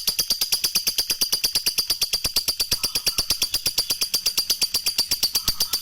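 Lovebird singing its ngekek: a long, unbroken, rapid chatter of high, shrill notes, about a dozen a second.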